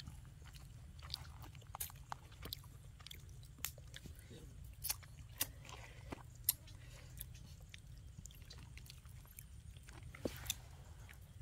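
Faint, irregular wet clicks and smacks of someone chewing and eating grilled fish with their fingers, over a steady low background rumble.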